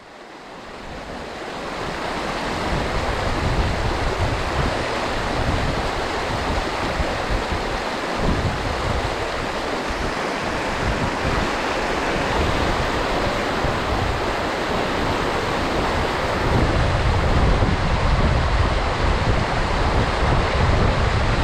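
Steady rushing of stream water, with wind buffeting the microphone in low gusty rumbles. The rush fades in over the first second or two.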